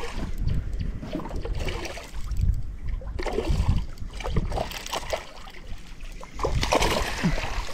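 Water splashing with irregular knocks against a small boat as a hooked tigerfish is fought and brought in on a fly rod. It gets louder and splashier near the end.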